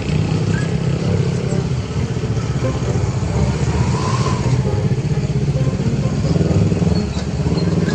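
Loud, steady rumble of motor vehicle engines in heavy traffic, with a deep engine hum throughout.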